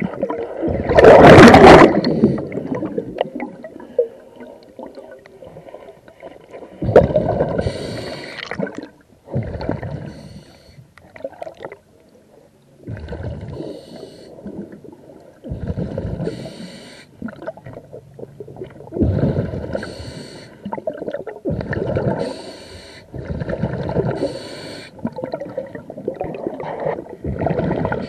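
A diver breathing underwater through a regulator: repeated surges of exhaled bubbles with hissing inhales, every two to three seconds. The loudest comes about a second in, followed by a few seconds' pause.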